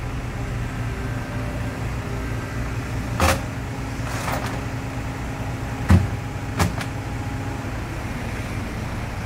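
Kubota mini excavator's diesel engine running steadily, with three sharp knocks, about three, six and six and a half seconds in, as the machine settles its bucket on the truck deck.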